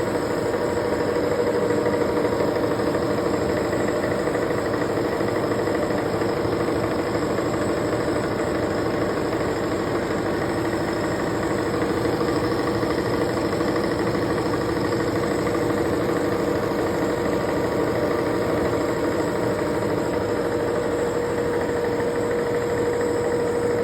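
Milling machine running steadily while milling an internal contour, with a steady whine over the cutting noise.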